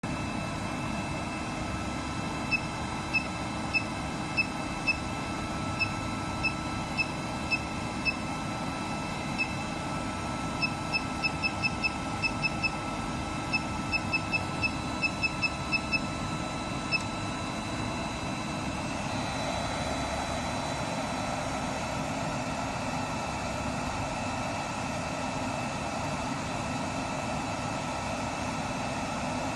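Short electronic beeps from a shockwave therapy machine's touchscreen as its settings are tapped, some single and some in quick runs, over the machine's steady hum. The beeps stop about two-thirds of the way through, and the hum grows a little louder.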